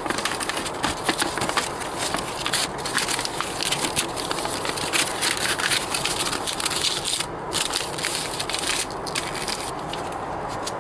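Folded paper leaflet being opened out and handled, crinkling and rustling in quick irregular crackles that die away about nine seconds in.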